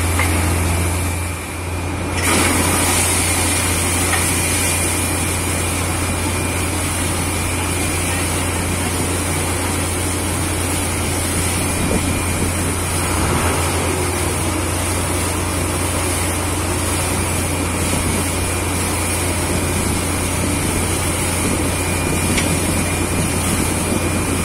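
Truck-mounted borewell drilling rig running steadily: a heavy engine drone under a loud hiss of compressed air. The sound dips briefly about a second and a half in, then the air hiss comes back stronger.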